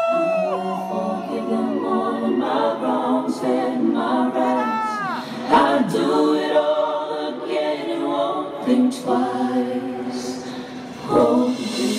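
Live a cappella singing: a lead voice running quick melismatic runs up and down over held choir-style backing harmonies, with no instruments.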